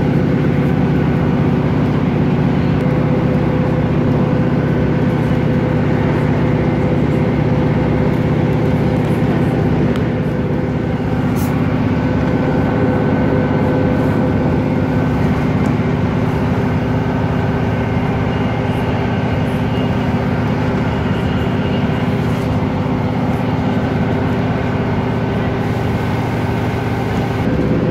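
Steady running noise inside a moving passenger train carriage: rumble from the wheels on the rails under a constant low hum, with a few faint clicks.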